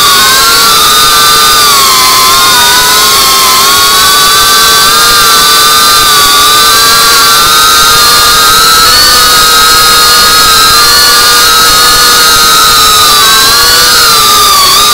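Brushless motors and propellers of an FPV drone whining steadily, heard from the camera on the drone itself; the pitch drifts slightly up and down with the throttle and dips near the end.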